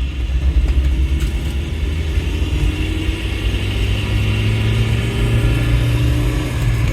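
A 1989 Nissan Sentra's four-cylinder engine running under way, heard from inside the cabin over a steady low road rumble, its pitch climbing gently in the second half as the car gathers speed.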